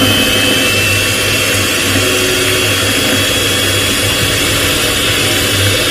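Electric hand mixer running steadily at speed, its twin wire beaters whipping partly frozen ice cream base in a steel bowl: a steady high motor whine over a churning hiss.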